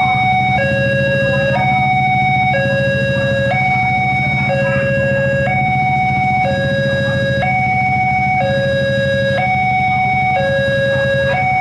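Railway level-crossing warning alarm sounding: an electronic two-tone signal that alternates high and low about once a second, repeating without break while the crossing is closed for an approaching train.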